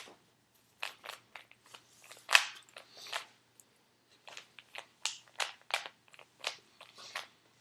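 Rubik's Cube being turned by hand: an irregular run of quick plastic clicks and clacks as the layers are twisted, the loudest about a third of the way in.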